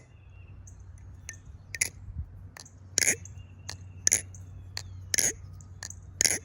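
TheOne Alien balisong (butterfly knife) being flipped, its handles clacking against each other in sharp clicks at an uneven pace of about one or two a second.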